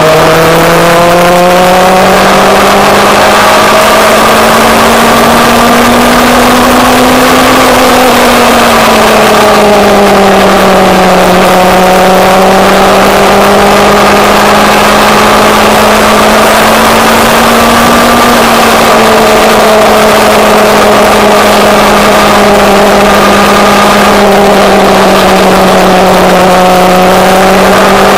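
Motorcycle engine running at a steady cruising speed. Its pitch climbs gradually over the first several seconds, eases back about ten seconds in, then holds fairly steady, with wind rushing over the microphone.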